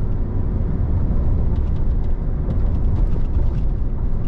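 Steady low engine and road drone inside the cab of a pickup powered by the 3.0-litre Duramax LM2 inline-six turbodiesel, working under load while towing a trailer uphill.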